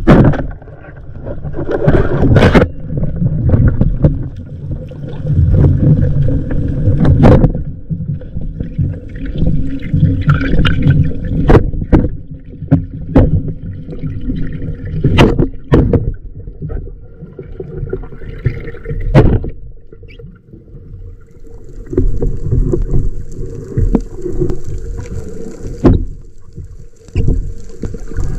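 Underwater water noise picked up by an action camera during a spearfishing dive: a steady low rumble of water moving past the housing, with gurgling, broken by repeated sharp knocks and clicks.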